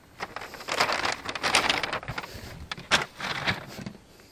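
Rustling, crinkling and small knocks as someone climbs into a car's driver's seat through the open door, with a sharp click about three seconds in.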